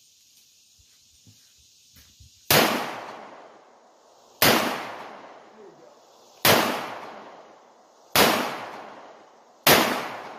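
Five shots from a .357 Taurus revolver, spaced about two seconds apart. Each is a sharp crack that trails off in a reverberating echo.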